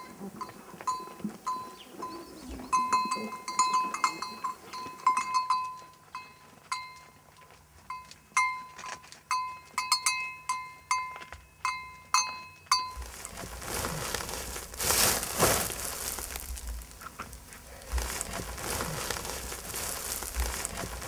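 Small metal livestock bells clinking irregularly on a grazing goat herd, with a few goat bleats, for the first dozen seconds or so. After that a steady rushing noise takes over.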